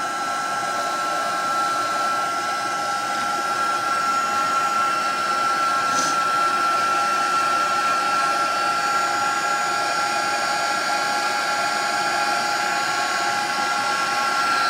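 Handheld craft heat tool running, blowing hot air steadily to dry watercolour on a card panel, with a steady high-pitched whine over the rush of air.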